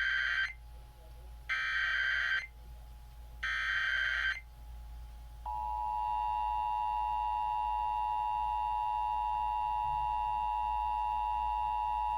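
Emergency Alert System header: the end of one SAME data burst and two more raspy, warbling digital bursts of about a second each, two seconds apart. About a second and a half after the last burst, the EAS two-tone attention signal starts, a steady, harsh dual-tone alarm.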